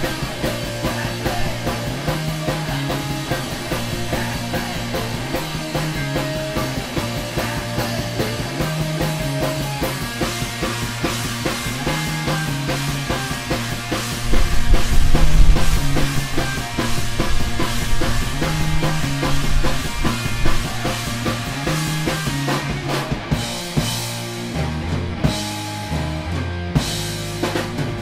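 Live rock band playing loud: distorted electric guitar, bass and drum kit locked into a riff that repeats about every two seconds. Near the end the full sound breaks up into short gaps with separate bass notes and drum hits.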